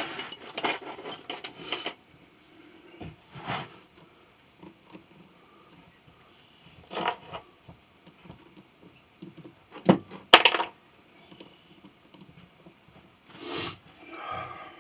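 Small metal objects clinking and clattering as they are handled, in scattered knocks with quiet between, the loudest pair about ten seconds in.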